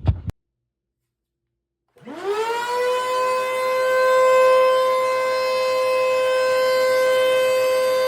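Eureka PowerSpeed upright vacuum cleaner's motor switching on about two seconds in, its whine rising quickly to full speed and then running as a steady high-pitched whine over the rush of air.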